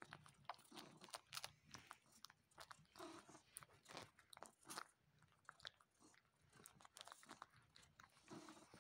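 A tabby cat suckling on a person's bare arm as a kitten nurses: faint, quick, irregular wet sucking clicks and smacks, several a second.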